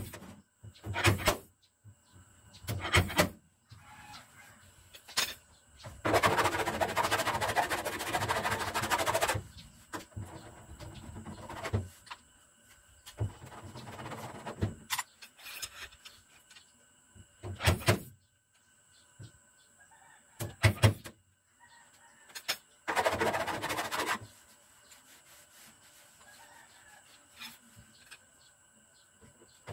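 Dent-repair work on a steel car bonnet with a stud-welder dent puller: sharp metallic knocks every few seconds, as from the slide hammer pulling the panel. Twice the knocks give way to a stretch of harsh, steady noise, once for about three seconds and later for about a second and a half.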